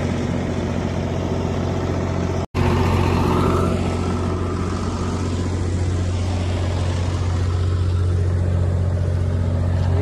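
Diesel generator engine running steadily at constant speed, a continuous low hum. The sound cuts out for an instant about two and a half seconds in.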